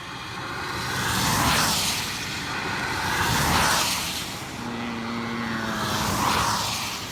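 Vehicles passing one after another on a rain-wet road: the tyre hiss and engine noise swell and fade three times.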